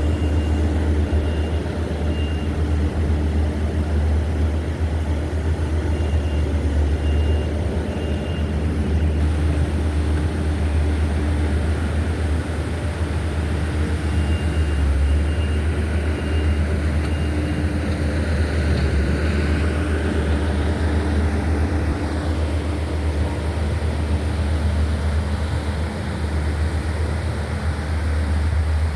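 Steady low rumble of a car's engine and road noise heard from inside the moving vehicle, with a faint high tone that comes and goes.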